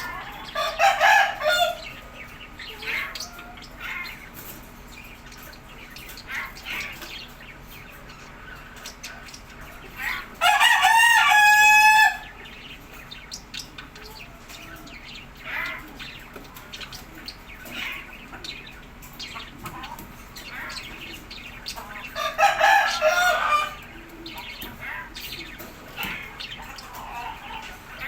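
A rooster crowing: one long, held crow about ten seconds in, with shorter, rougher calls about a second in and again some twenty-two seconds in, and faint bird chirps in between.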